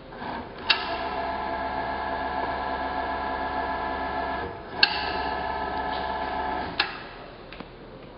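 Axis servo motor of a 1999 Bridgeport Series 1 EZ Trak CNC mill driving the table at rapid traverse: a steady whine for about four seconds, a short pause, then about two seconds more. Sharp clicks mark the start of each run and the final stop.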